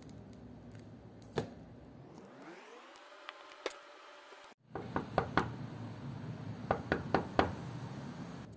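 Knocking on a door, several quick sharp knocks in clusters starting about five seconds in. Before it, a rising tone sweeps up and cuts off abruptly.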